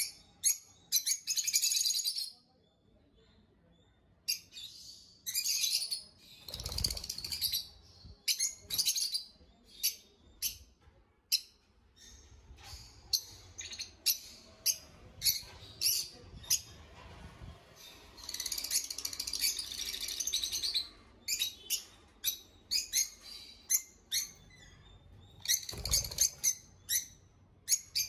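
Caged peach-faced lovebirds calling in short, sharp, high chirps, coming in clusters of rapid chatter with pauses between. Two low thuds, one about a quarter of the way in and one near the end, with fluttering wings.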